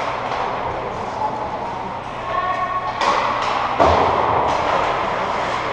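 Hockey skates scraping and cutting on rink ice, with several knocks and a heavier thud about four seconds in.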